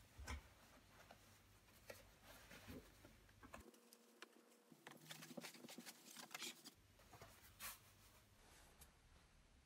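Faint rustling and scratching of a military parka's shell fabric being handled as the hood is rolled up and fastened at the collar, with scattered small clicks.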